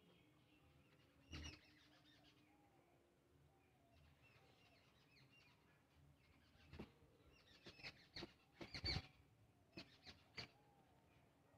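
Faint birds chirping, with a scatter of short clicks and smacks from eating rice by hand off a metal plate, most of them in the second half.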